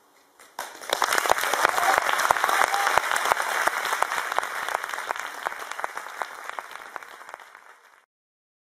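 Audience applause. It starts suddenly about half a second in, is loudest over the first couple of seconds, thins gradually, and cuts off abruptly near the end.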